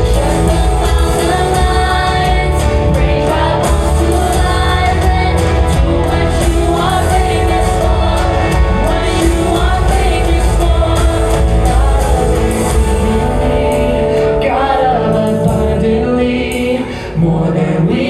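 Live gospel praise music: a worship band playing with a strong bass while singers sing.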